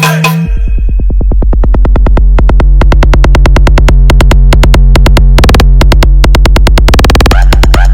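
Bass-boosted electronic dance music: a deep, steady synth bass under a fast drum-machine pulse, with brief drum rolls about five and seven seconds in.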